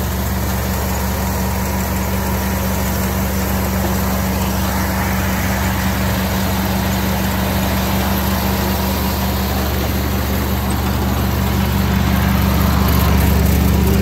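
Small Mitsubishi combine harvester running steadily as it cuts and threshes rice, a constant engine drone that grows a little louder near the end.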